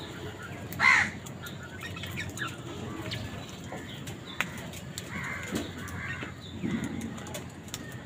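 A house crow gives one loud caw about a second in, followed by softer scattered bird calls and a few sharp clicks.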